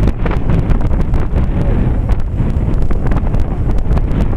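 Wind buffeting the microphone: a loud, steady low rumble with frequent small crackles.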